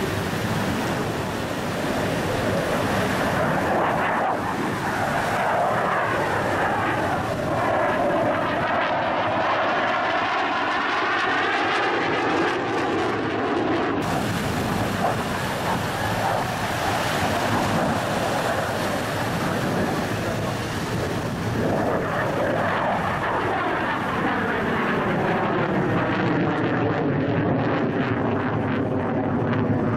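Saab 35 Draken jet fighter's afterburning turbojet flying overhead: a steady rush of jet-engine noise with a sweeping, phasing tone that shifts as the aircraft moves across the sky. The sound changes abruptly about halfway through.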